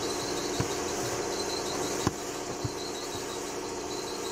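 A few light knocks as the corroded metal thermostat housing is handled, the loudest about two seconds in, over a steady hum and a faint high chirp repeating about five times a second.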